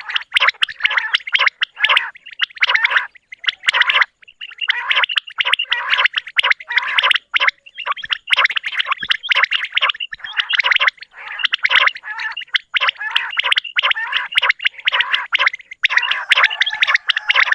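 Common quails calling: a dense, rapid chatter of many birds at once, in runs of several seconds broken by short pauses about three, seven and fifteen seconds in.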